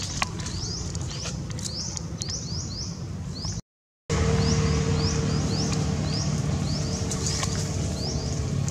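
High bird chirps repeat in quick runs, two or three a second, over a low steady rumble. The sound drops out completely for about half a second before the middle, then the chirping carries on.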